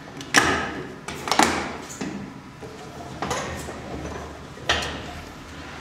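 Sharp knocks and clicks of handling, about five spread across the stretch, as a steel mortice lock and marking tools are set against and lifted off a timber test piece.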